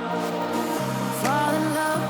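Background music: a soft pop-style track with a sustained melody and gliding sung or instrumental lines.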